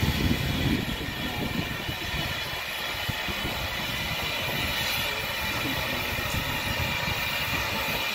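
Guinness 3BG, a small 0-4-0 saddle-tank steam locomotive, moving slowly with a coach. It gives a steady hiss over uneven low rumbling, which is loudest in the first second.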